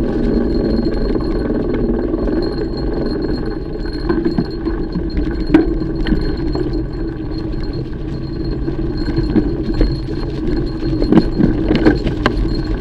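Mountain bike being ridden along a trail: steady rolling and rumbling noise with the chain and bike parts clinking and rattling over bumps, and a cluster of sharper knocks near the end.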